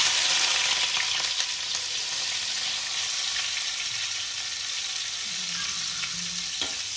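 Dried anchovies hitting hot oil in a wok and frying. The sizzle starts suddenly as they go in and settles into a steady hiss.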